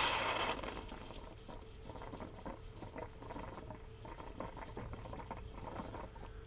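Open freshwater line sputtering out pink antifreeze mixed with air under pump pressure: a spray that tails off in the first half second into irregular spitting and spattering. The water pump is drawing air, so the line spits rather than flows.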